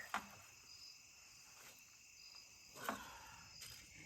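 Faint evening chorus of crickets, a steady high-pitched trill, with two faint short calls, one right at the start and one about three seconds in.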